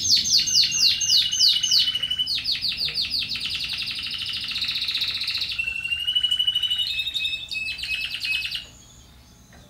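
Timbrado Español canary singing: fast runs of repeated chirping notes, with held steady whistled notes sounding over them at times. The song stops about a second before the end.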